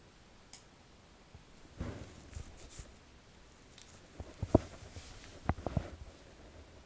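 Scattered light clicks and knocks of handling at a desk, a few at a time, with one sharper knock about halfway through.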